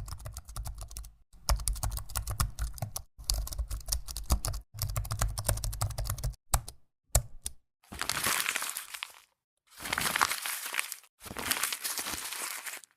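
Computer keyboard typing sound effect: rapid key clicks in four separate takes, each a second or two long with short gaps between. A few single clicks follow, then three short rustling, crinkling bursts, each about a second and a half long.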